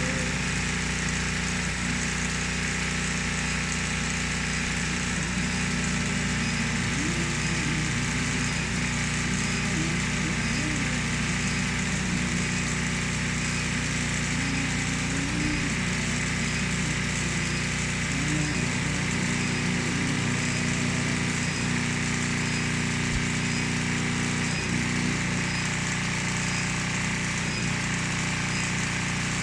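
Industrial hat-brim sewing machine running steadily, a continuous mechanical drone with a steady motor hum and no breaks.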